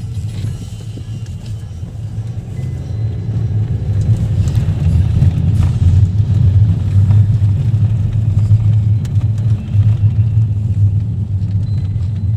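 A car driving, a steady low road and engine rumble that grows a little louder about four seconds in.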